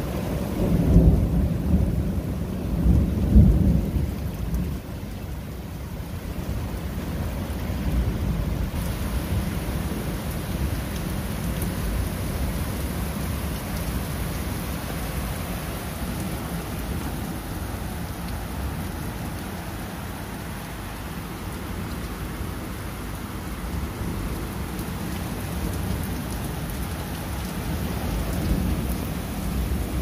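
Steady rain falling on puddled pavement and grass, with a low rumble of thunder from about a second in that swells twice and fades by about four seconds.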